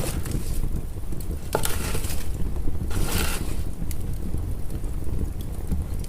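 Wood fire burning in a fireplace: a steady low rumble of the flames with scattered crackles and pops, and two short hissing flare-ups, about one and a half and three seconds in.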